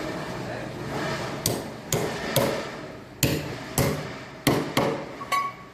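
A hammer striking about eight times at an uneven pace, over a steady background noise; the last blow rings briefly.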